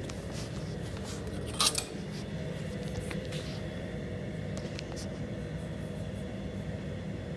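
Steady low background hum in a metal shop, with one sharp click about a second and a half in and a few faint ticks.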